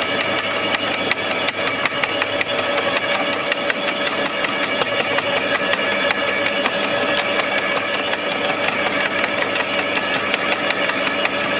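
MacAllister electric garden shredder running steadily, its motor humming while the cutting drum crushes a large dry branch with rapid, continuous crackling and snapping.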